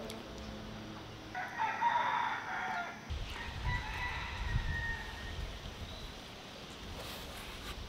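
A rooster crowing: one long crow starting about a second and a half in, followed by fainter calls.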